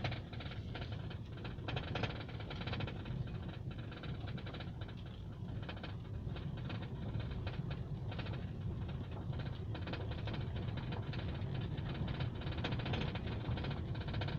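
Honda Civic sedan running over a steady low road rumble, with irregular short knocks and rattles. The knock persists even though the owner has replaced parts, including fitting a new bushing to the steering rack; its source is still not found.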